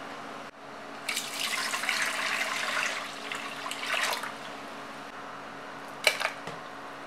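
Water poured from a plastic measuring jug into an empty aluminium saucepan, a rushing splash for about three seconds. About six seconds in, a short, sharp splash and knock as a lump of ground chicken thigh goes into the water off a spatula.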